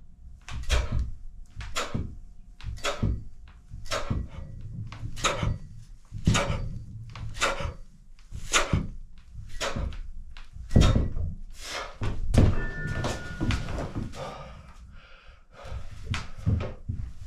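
A set of weight-training repetitions: a short noisy stroke with a dull thump about once a second, evenly paced, with a pause of a second or two near the end before the strokes start again.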